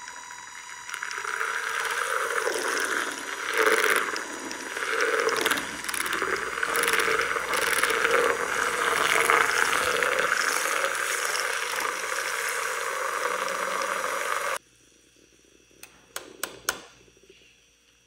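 Handheld battery milk frother whisking coffee in a ceramic mug: a small motor's steady whine over liquid churning, cutting off suddenly about fourteen seconds in. A few light clicks follow near the end.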